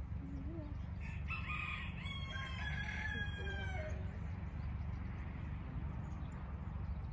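A rooster crowing once: a call of about three seconds in several segments, falling in pitch at the end, over a steady low background noise.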